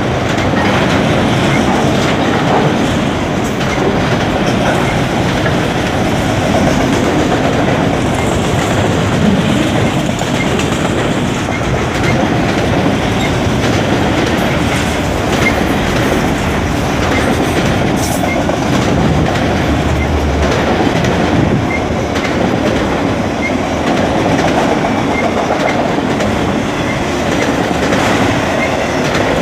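Enclosed autorack freight cars rolling past close by: a steady, unbroken noise of steel wheels running on the rails, with faint scattered clicks.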